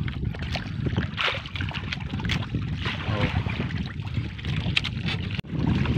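Wind on the microphone and water washing around a small wooden outrigger boat while a fishing net is hauled aboard, with a few brief splashes and faint voices.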